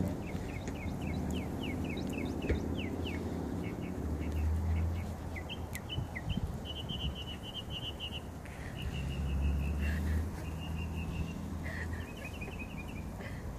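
Birds chirping outdoors: repeated short chirps and quick trilled runs of notes, with a low rumble swelling twice.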